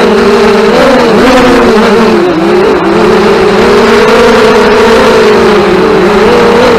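FPV racing drones' motors and propellers buzzing loudly, the pitch wavering up and down as throttle changes.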